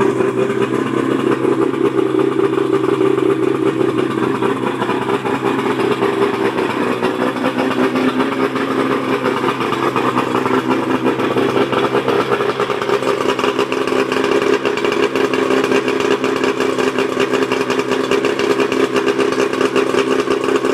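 A 1995 Johnson 50 HP two-stroke outboard motor running steadily, its pitch shifting slightly a little past halfway.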